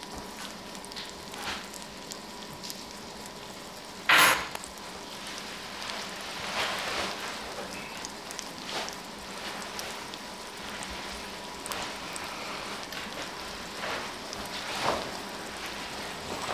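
Meat frying in a pan, a steady sizzling hiss, with an apartment's front door shutting with a single loud knock about four seconds in.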